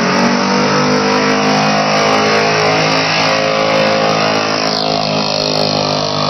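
Pickup truck's engine held at high revs under the heavy load of a pulling sled, a loud, steady drone.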